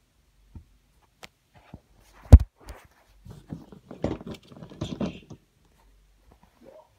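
Close handling noise: a few light clicks, one sharp knock about two seconds in that is the loudest sound, then a couple of seconds of rustling and clattering as the camera is moved down onto the carpet.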